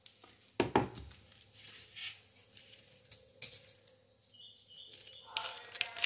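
Handling of a wooden box wrapped in plastic cling film: it is set down on the table with a thud about half a second in, then light taps and rustles of the film as a hand smooths it. Near the end, scissors cut into the film.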